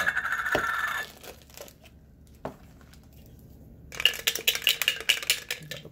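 Funko Soda can's sealed metal lid tearing free with a sharp snap and about a second of scraping rip. A few seconds later comes a quick run of clicks and rattles as the opened can is shaken and its loose pog knocks around inside the metal can.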